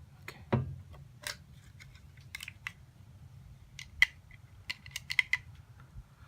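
Scattered light clicks and taps of small parts being handled, with one duller knock about half a second in and a quick cluster of clicks near the end.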